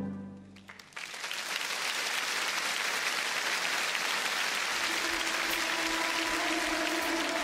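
Audience applauding: the music fades out, the applause breaks in about a second in, and music comes back in softly under it near the end.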